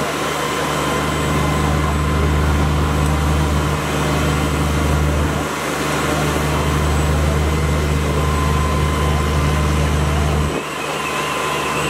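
Fire engines running steadily at high idle, their engines driving the pumps that supply the hoses and the aerial ladder's water stream. It is a loud, even drone that dips briefly twice, and a faint wavering whine comes in near the end.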